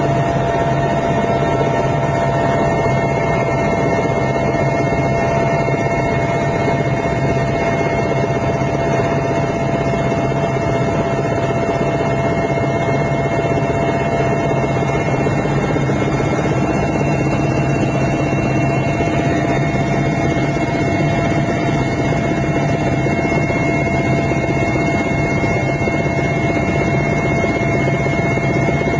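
Mil Mi-8 helicopter in flight: its twin turboshaft engines and main rotor make a loud, steady drone with a constant high whine over it.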